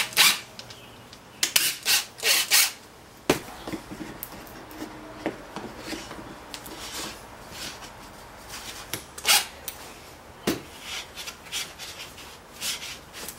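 Plywood pieces being handled and slid against each other on a workbench: scattered scraping and rubbing, with a couple of sharp knocks of wood on wood.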